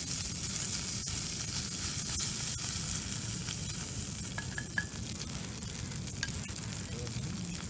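Bacon sizzling and frying in a cast-iron skillet over a small wood fire, a steady hiss with a few sharp clicks.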